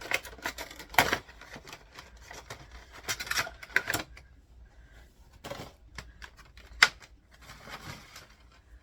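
Cardboard Funko Pop box and its plastic insert being handled and opened: a run of irregular crinkles, rustles and clicks, with one sharp click near the end.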